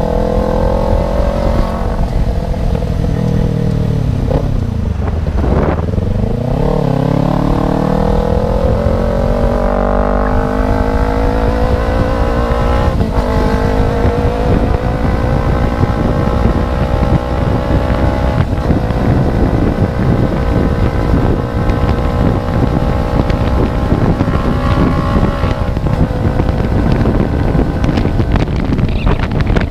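Kawasaki Ninja 250 Fi parallel-twin engine running with no exhaust fitted, under way on the road. The revs fall sharply about five seconds in and climb back, then rise slowly and steadily.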